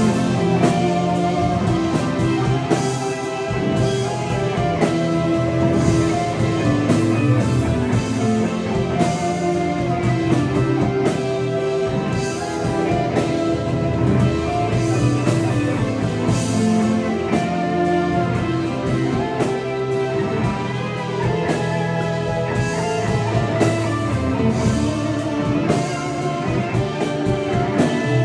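Live rock band playing, with guitars over bass and a drum kit.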